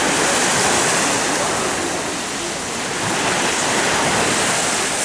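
Steady rush of sea surf on the Azov Sea shore, with wind in the background.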